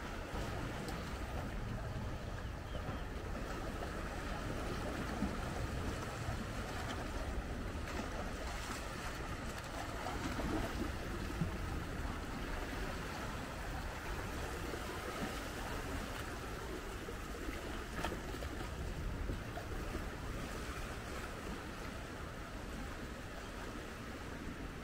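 Small waves washing steadily over a sandstone rock platform at the sea's edge, with a low rumble underneath.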